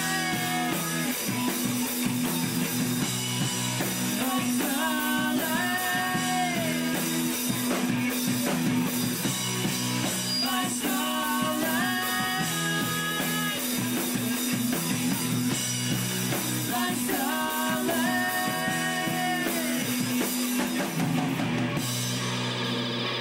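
Live rock band playing: a melody line over electric guitar, bass and a drum kit.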